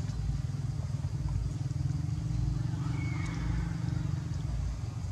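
Motorbike engine running steadily at a low rumble.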